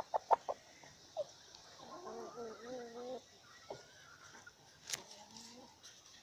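Agitated hens squaring off to fight: a few short clucks, then one drawn-out wavering growl-like call about two seconds in lasting about a second, and a sharp tap near the end.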